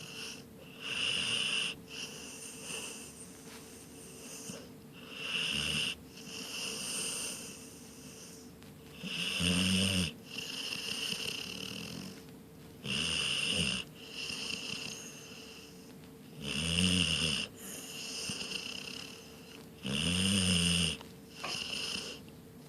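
Snoring in a steady rhythm: six loud snores, each about a second long, come about every three and a half seconds, with softer breathing sounds between them.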